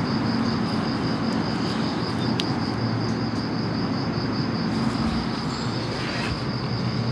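An insect trills steadily in rapid, even pulses, several a second, over a steady low hum and hiss of background noise.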